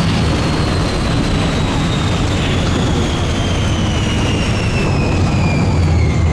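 Test Track ride vehicle running at speed on the outdoor loop: a steady rush of wind and tyre noise, with the electric drive's whine sliding steadily down in pitch as the car slows.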